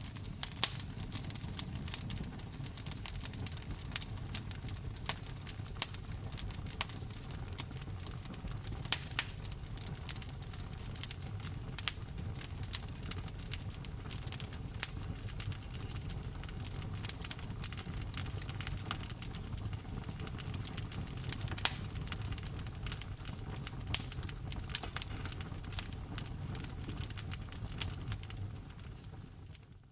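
Wood fire burning in a fireplace: irregular sharp pops and snaps of crackling wood over a steady low rumble of flame. The sound fades out near the end.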